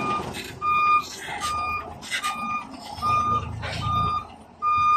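Dump truck's reversing alarm beeping at a steady single pitch, a little more than once a second, as the truck backs up. The low run of its diesel engine sits underneath.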